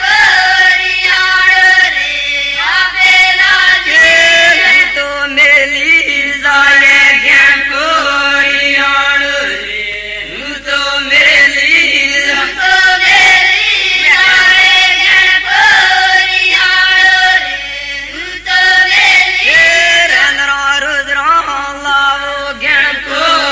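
A group of women singing a devotional folk song together in unison, chant-like, with long held notes stepping between a few pitches and short breaks between lines.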